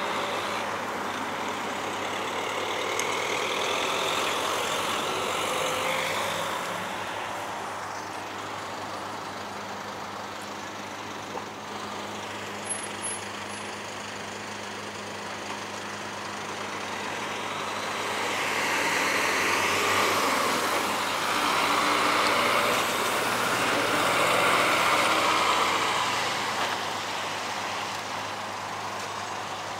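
Large road vehicles driving past, their engine and tyre noise swelling and fading as they go by. A smaller pass comes a few seconds in, and a louder one between about 18 and 26 seconds in.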